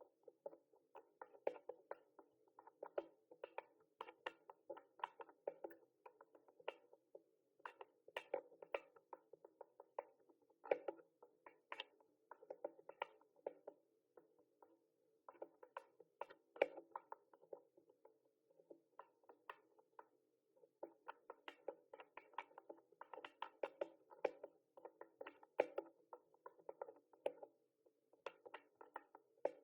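Mechanical keyboard typing: quick irregular runs of key clicks and clacks, several a second, broken by short pauses.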